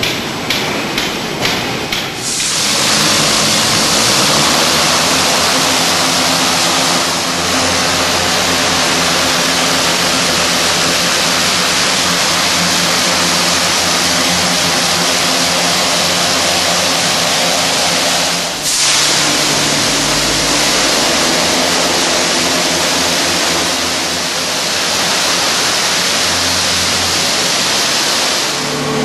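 High-pressure water spray from a robotic truck-washing system, a steady loud hiss over a low machine hum, likely the pump. The spray starts about two seconds in after a few rapid ticks, and briefly drops and comes back past the middle.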